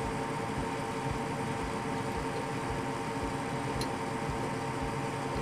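Steady mechanical hum of a running fan or motor, even throughout, with one faint click about four seconds in.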